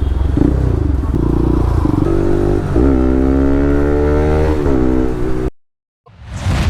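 Modified Pulsar RS200 motorcycle running through an Akrapovic R1M full-system exhaust, revving with the pitch rising from about three seconds in. The sound cuts off suddenly and a loud bang-like burst begins just before the end.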